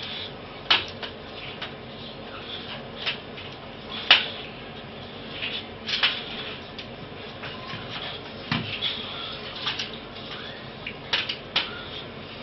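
Scattered sharp clicks and knocks at irregular intervals as a dog noses a plastic hamster ball around a tiled floor, with one duller thump about eight and a half seconds in.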